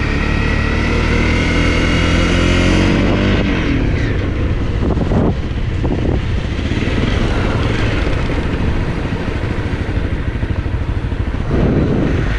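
Honda CRF250 dirt bike's single-cylinder four-stroke engine under way, rising in pitch as it accelerates over the first three seconds, then running on with a rougher, uneven sound and a few knocks.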